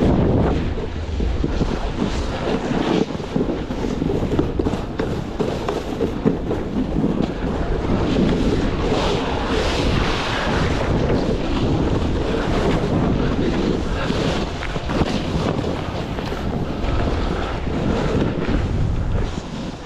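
Wind gusting over the microphone: a steady, loud rushing and rumbling that rises and falls.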